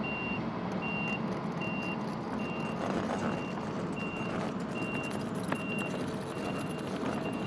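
A compact track loader's backup alarm beeping steadily, one short beep about every 0.8 seconds, over the steady running of its engine as it backs up pulling a strap-hitched pond liner bundle to unroll it.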